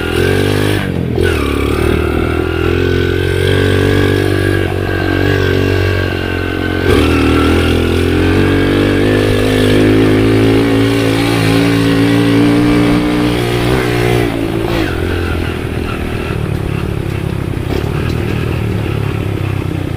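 Underbone motorcycle engine running under load on a rough trail, its pitch rising and falling with the throttle, with shifts about a second in, around seven seconds and near fifteen seconds.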